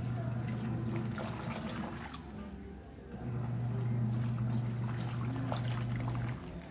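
Seagull (HaiOu) washing machine washing towels: its motor hums steadily for about a second, pauses for about two seconds, then runs again for about three seconds before stopping near the end, with water sloshing throughout.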